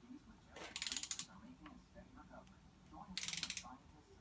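Ratcheting torque wrench tightening the oil pump bolts to 250 inch-pounds: two short runs of rapid ratchet clicks, about a second in and again about three seconds in.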